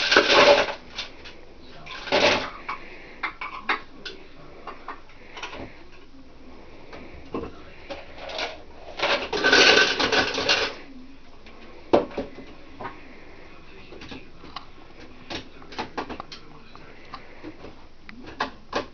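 Plastic clunks, clicks and scraping as a blender jar and base are handled and fitted together on a kitchen counter, with a few longer scraping rattles. The blender itself does not run.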